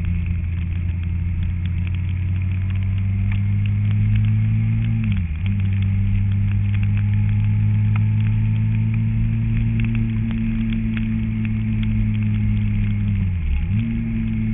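Kawasaki ZZR1400 inline-four motorcycle engine running steadily under way, its pitch slowly rising. The engine note dips briefly and recovers twice, about five seconds in and near the end.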